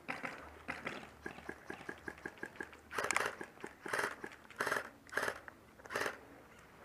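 Footsteps crunching on gravelly ground, about six heavy steps after a run of small light clicks and rattles in the first couple of seconds.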